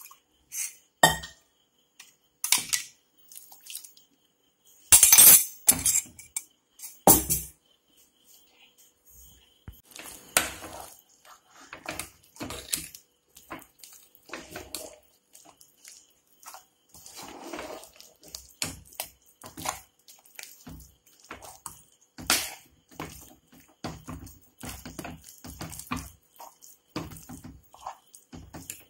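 Metal ladle stirring and mixing mashed tapioca in an aluminium pressure cooker, knocking and scraping against the pot in irregular strokes. A few louder clanks come in the first seven seconds, the loudest about five seconds in.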